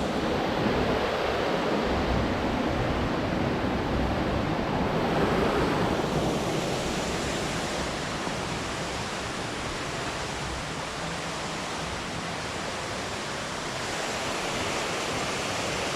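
Water pouring over a small dam's spillway: a steady rushing waterfall.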